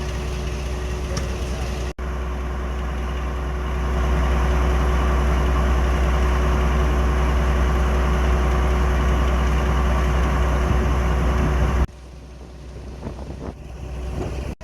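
Heritage diesel locomotive engine running with a heavy, steady low drone and a constant tone over it. It grows louder about four seconds in and cuts off suddenly near the end.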